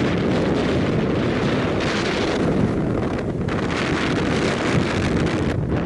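Strong mountain wind buffeting the microphone: a loud, steady rumble with gusts that swell and ease every second or so.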